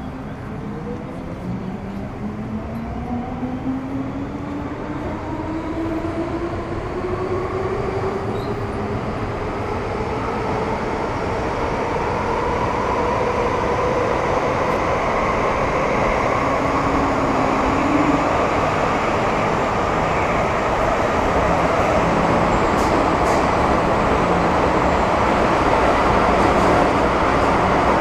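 Metro Cammell M-Train's GEC GTO chopper traction equipment whining as the train accelerates, several tones rising together in pitch over the first dozen seconds, with wheel and track rumble growing steadily louder.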